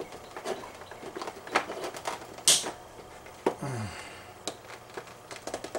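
Small screwdriver clicking and scraping against a relay's plastic cover while prying at the latch that holds it to the base, in scattered light taps with a short scrape about two and a half seconds in.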